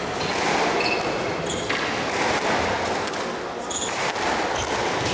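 Squash rally: the ball struck by rackets and hitting the court walls, with brief high squeaks from shoes on the wooden floor.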